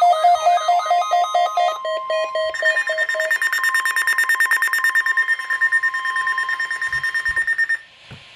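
Electronic alert tones from a NOAA Weather Radio weekly test broadcast: warbling tones die away in the first couple of seconds, then rapid high beeping over a steady tone, which cuts off abruptly near the end.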